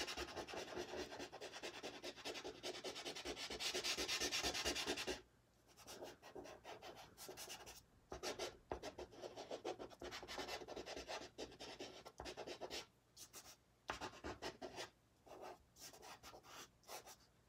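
Soft pastel stick scratching across pastel paper in quick back-and-forth strokes, continuous for about five seconds, then in shorter separate strokes after a brief pause.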